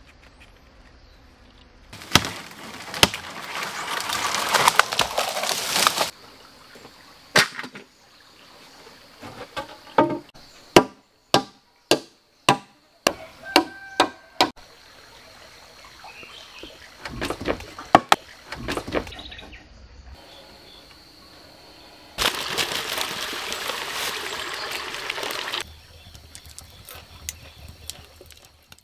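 A run of about ten sharp wooden knocks, roughly two a second, as logs are set and knocked into place for a log wall. Before and after it come stretches of steady hissing noise.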